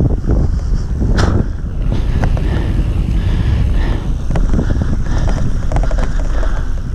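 Mountain bike descending a dirt singletrack: wind buffeting the bike-mounted camera's microphone over the rumble of the tyres on dirt, with scattered clicks and rattles from the bike. One sharp clack about a second in.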